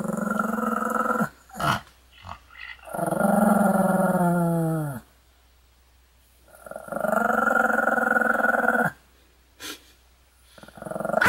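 Pomeranian dog growling in three long growls of about two seconds each, the middle one dropping in pitch as it ends, with short sharp yaps between them.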